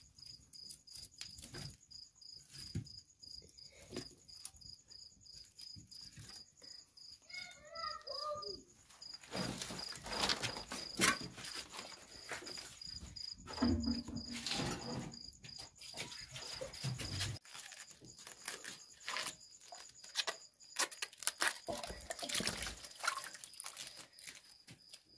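A cricket chirping steadily in a quick, even pulse, under irregular knocks, scrapes and clatters of cookware and food being handled, heaviest in the middle.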